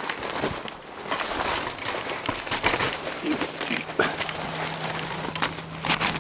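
Footsteps crunching and scraping on loose rock and gravel, in irregular steps.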